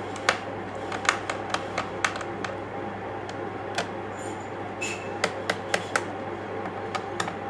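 Small sharp clicks, irregular and in clusters of a few per second, from a Phillips screwdriver working the screws on a laptop's back cover, over a steady low hum.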